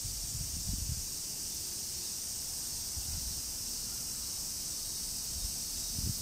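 Steady, high-pitched insect chorus, with faint low rumbles of wind on the microphone.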